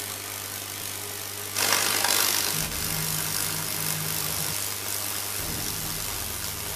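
Microwave oven transformer humming under load while high-voltage arcs crackle and hiss at the electrodes, burning a Lichtenberg figure into a pine board. The hiss is loudest from about a second and a half to two and a half seconds in, and a deeper buzz comes and goes after that.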